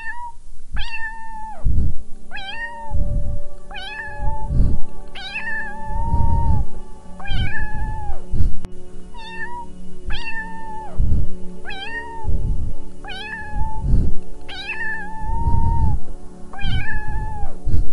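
Domestic cat meowing again and again, about a dozen meows a second or so apart, each rising at the start and falling off at the end, over steady background music.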